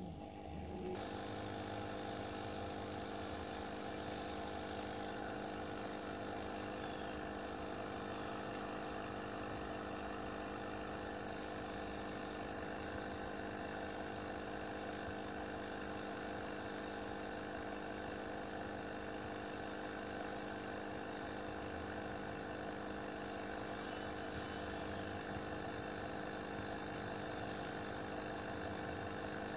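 Steady motor hum holding several fixed tones over a low rumble, unchanging throughout.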